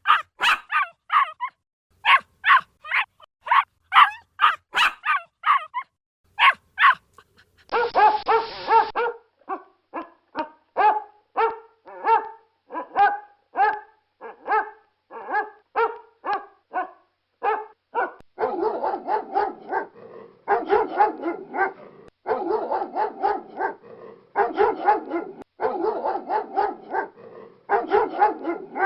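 Dogs barking in a string of separate recordings. First comes rapid, high-pitched yapping, then lower barks about twice a second, and after about 18 seconds quick clusters of barking broken by short gaps.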